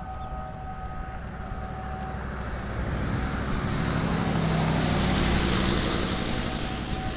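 A civil defense siren's steady tone fades away in the first second or two, then a broad rushing noise with a low hum swells, peaks about five seconds in and eases off, like a vehicle passing.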